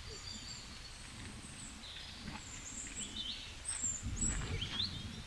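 Small birds chirping here and there, short high chirps and whistles, over a low background rumble.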